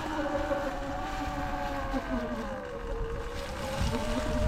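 Sur-Ron Light Bee X electric dirt bike's motor and drivetrain whining as it rides, the pitch dropping about three seconds in and then holding steady, over wind noise on the microphone.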